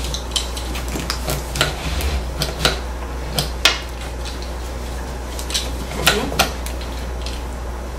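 Irregular clicks and light rattles of a car seat's harness buckles and straps being fastened and tightened, over a steady low hum.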